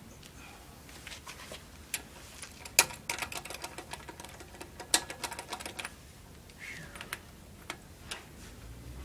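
Sharp clicks and knocks from work on a car wheel during a tyre change, with a rapid run of them from about three to five and a half seconds in.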